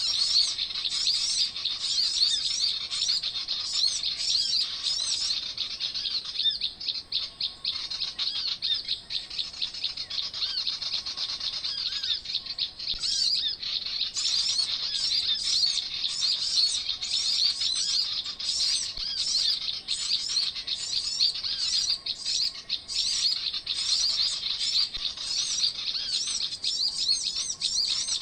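Many small songbirds chirping rapidly and without a break, high-pitched calls overlapping densely.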